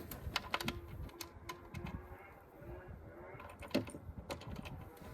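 Scattered light clicks and taps, with two sharper knocks near the four-second mark: metal hardware and the adapter plate being shifted along the snowmobile's tunnel rail.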